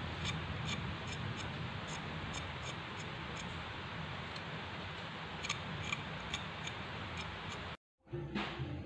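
Small kitchen knife scraping and clicking against jengkol (dogfruit) beans as their thin inner skin is peeled off: faint ticks about two or three a second over a steady hiss. The sound drops out briefly near the end.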